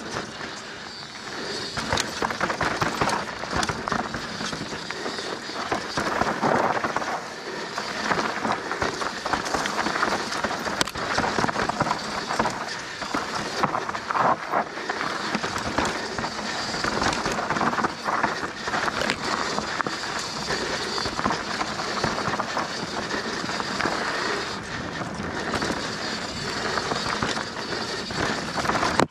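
Mountain bike riding fast down a dirt and rock singletrack: a continuous rattling rush of knobby tyres over dirt and stones, with clatter from the bike and many small clicks and knocks.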